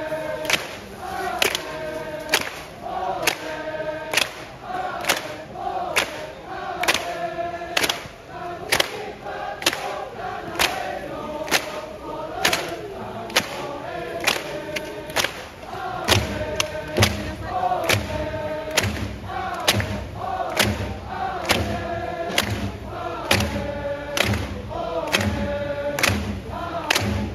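A stadium crowd of football supporters chanting in unison to an even, steady drum beat.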